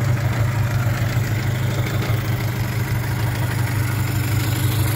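1995 Mercury 8 hp long-shaft two-stroke twin-cylinder outboard running steadily at idle in a test tank, holding an even pitch.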